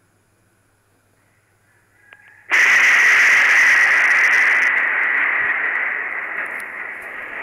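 Thunderclap from a lightning strike, through a security camera's microphone: a sudden, very loud crack about two and a half seconds in, after near silence, then a harsh rumble that slowly fades.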